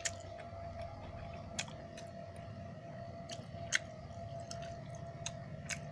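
Eating sounds as rice is mixed by hand on a steel plate and chewed: soft chewing with about five sharp clicks, the loudest a little under four seconds in, over a faint steady hum.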